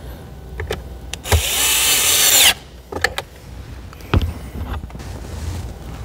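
Cordless electric screwdriver (Worx) driving in a bolt, its motor running for about a second and falling in pitch as it stops. A few sharp clicks and knocks of handling come before and after.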